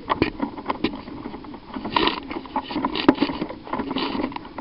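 Irregular knocks and rustling from a person moving on foot with a body-worn camera: footsteps and gear jostling, with a couple of louder knocks about two and three seconds in.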